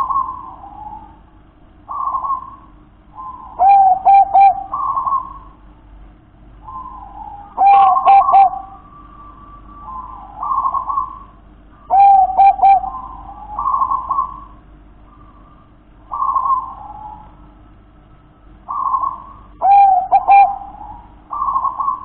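Zebra dove (perkutut) cooing in its song: soft coos come every couple of seconds. Four louder phrases of three quick, rolling notes stand out among them.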